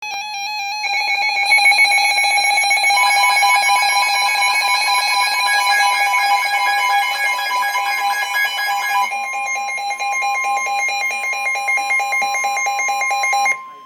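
Emergency Alert System attention signal: a loud, steady, harsh electronic alarm of two pitches sounding together. One of the pitches changes about nine seconds in, and the signal cuts off abruptly just before the end.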